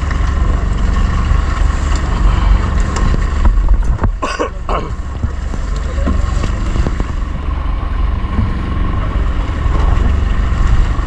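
Outrigger fishing boat's engine running steadily, with a brief shout about four seconds in.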